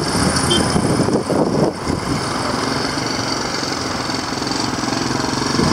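A motor vehicle engine running close by amid road traffic noise, settling into a steady, even hum about two seconds in.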